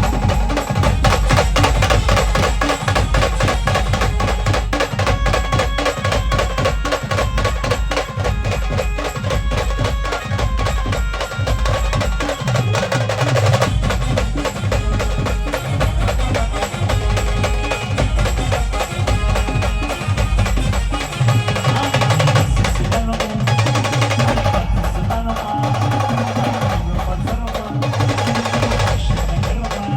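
A village band playing a dance song, with a steady pounding drum beat under the melody instruments.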